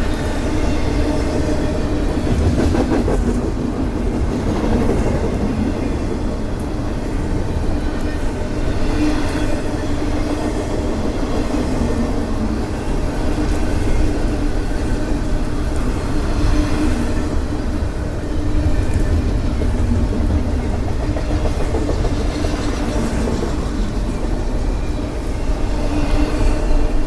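Intermodal container cars of a CSX freight train rolling past, a steady rumble and rattle with the wheels clicking over rail joints every few seconds.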